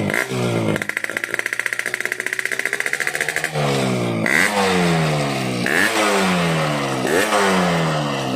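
Yamaha RX-King two-stroke single revving through its stock muffler fitted with a new baffle insert. It is held at a steady mid rev for about three and a half seconds, then blipped repeatedly, about every second and a half, the revs jumping up and sinking away each time, with the crisp, sharp note the shop calls "garing pedes".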